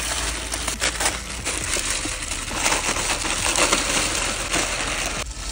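Maggi instant-noodle packets being slit open with knives and torn, with the plastic wrappers crinkling and dry noodle blocks crunching and rattling into an aluminium pot: a dense crackle of many small clicks.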